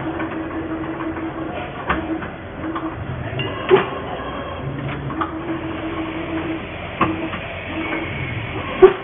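CNC 2D wire bending machine running through its cycle: motor whine in short spells, with a sharp clank about every one and a half to two seconds, two of them much louder than the rest.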